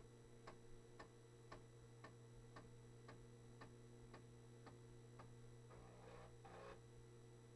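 Commodore 1571 floppy disk drive formatting a disk: faint, regular clicks about two a second as the head steps from track to track, over a low steady hum. The clicks stop about five seconds in, followed by a brief soft rushing sound.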